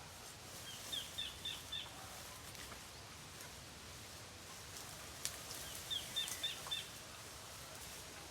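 A bird calling: two runs of four short, high chirps about five seconds apart, over steady outdoor background noise, with one sharp click between them.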